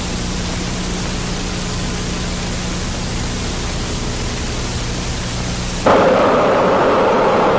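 Steady rushing air noise of a wind tunnel with a faint low hum. About six seconds in it switches abruptly to a louder, deeper rushing roar.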